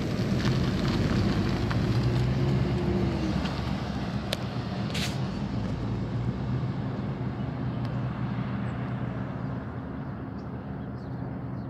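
2004 Ford Ranger pickup driving away, its engine and tyre noise fading steadily into the distance. A passing truck's engine recedes with it.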